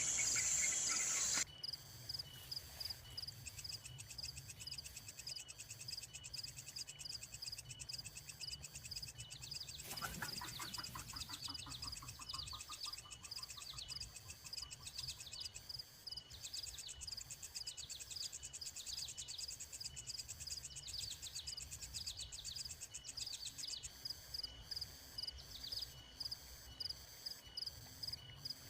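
Insects chirping in a steady chorus of fast, evenly repeating high pulses. A louder rush of noise fills the first second or so, and a brief falling call cuts across the chorus about ten seconds in.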